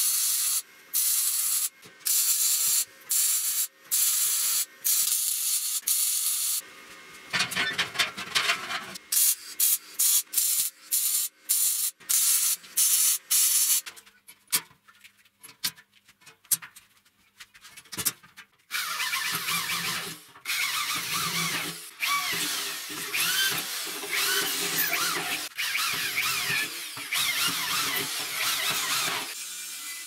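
MIG welder welding steel tube. The first half is a string of short welds, each about half a second with brief gaps between. After a quieter pause with a few clicks, the second half has longer weld runs.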